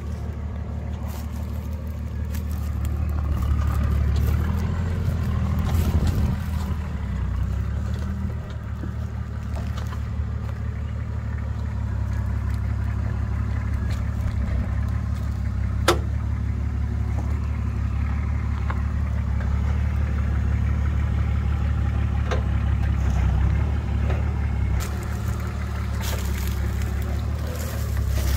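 An off-road 4x4 vehicle's engine running steadily, a little louder a few seconds in, with a sharp knock about halfway through and a few lighter knocks later.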